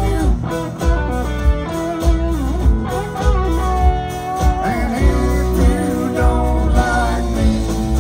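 Live country band playing amplified: guitars and fiddle over a steady drum beat, with a lead line of bending notes.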